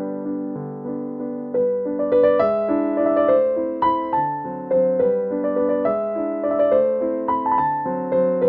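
Background piano music: a gentle melody of struck notes that die away, growing busier about one and a half seconds in.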